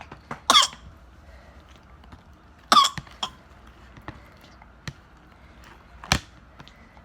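A person coughing three short times, spaced a couple of seconds apart, with faint clicks and taps in between.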